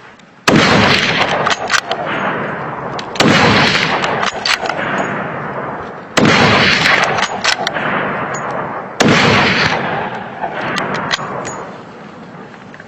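Four hunting rifle shots about three seconds apart, each followed by a long echoing tail that fades out, with small sharp clicks between the shots.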